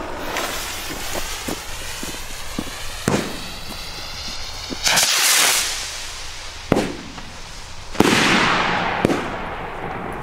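El Gato Volador de Trueno salute rockets: a rushing hiss as a rocket climbs, then several sharp, loud bangs of the flash-powder salutes. The loudest comes about eight seconds in and is followed by a long rolling echo.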